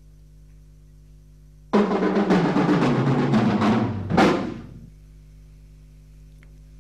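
Drum kit played hard: a sudden fast roll of drum strokes starting about two seconds in, ending on one louder hit that rings out for about half a second. A low steady hum sits underneath throughout.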